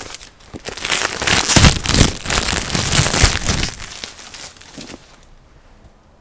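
Plastic shrink-wrap being peeled and crumpled off a board game box: a dense crinkling with a few low knocks of the box being handled, dying away after about four seconds.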